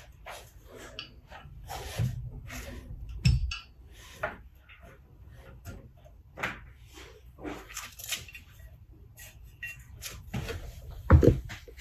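Irregular knocks, clicks and rubbing from treadmill parts being handled and fitted, with a few heavier thumps about two and three seconds in and again near the end.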